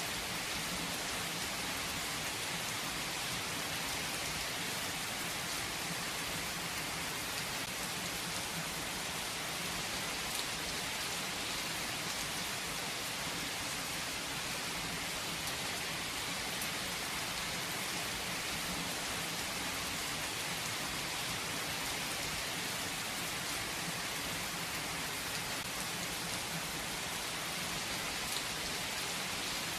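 Steady rain falling, an even hiss with a few scattered drops ticking now and then.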